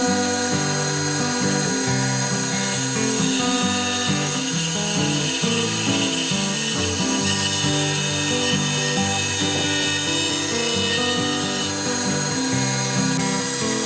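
A Hitachi table saw cutting through a thick pine panel, its steady blade hiss under background music that carries a moving melody and bass line.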